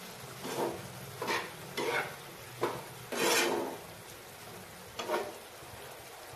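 Spatula stirring a thick potato-and-pea curry in a frying pan, scraping across the pan in about six short strokes, one of them longer about three seconds in, over a faint steady sizzle of the simmering curry.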